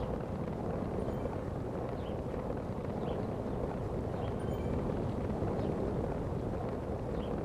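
Steady rushing wind and road noise from a bicycle ride, with a few faint, short high chirps.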